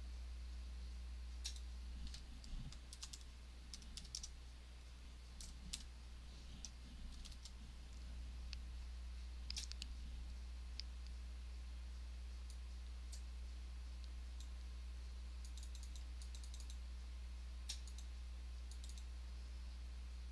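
Computer keyboard and mouse clicking in scattered runs of sharp keystrokes, over a low steady hum.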